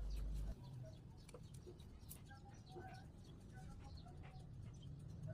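Faint birds calling in short repeated notes, with a few light clicks; a low hum cuts off about half a second in.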